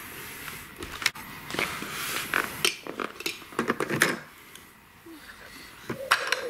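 Hard plastic toy parts of a VTech alphabet train clicking and clattering as the toy is handled: irregular knocks and rattles, thickest in the first four seconds and again near the end.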